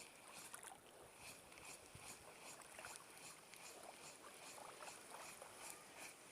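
Near silence: faint outdoor ambience with soft high-pitched ticks repeating irregularly.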